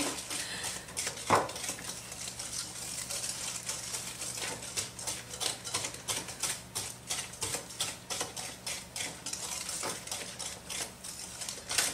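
Wire whisk beating a creamy dough mixture by hand in a glass bowl: fast, even clicks and scrapes against the glass, several strokes a second.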